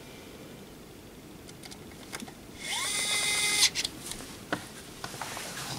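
Pen-style electric screwdriver whirring for about a second, spinning up as it starts, turning the small screw in the battery cover on the back of a plastic thermometer case. A few light clicks of handling follow.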